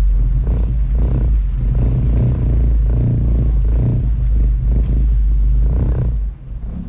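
Sightseeing boat's engine running with a steady low drone, with uneven whooshing surges over it. About six seconds in, the engine is throttled back and the sound drops away sharply.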